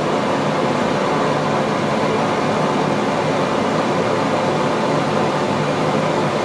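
Blacksmith's forge fire burning under a steady blast of air from its blower: an even rushing noise with a faint steady hum in it.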